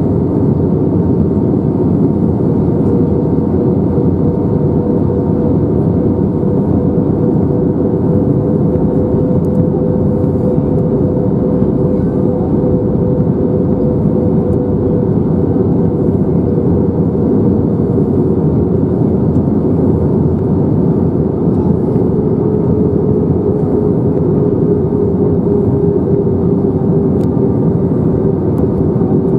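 Steady in-flight cabin noise of an Airbus A321-231 heard from a window seat over the wing: a rush of airflow with the drone of its IAE V2500 engines. A humming tone in the engine drone rises slightly in pitch and then sinks back near the end.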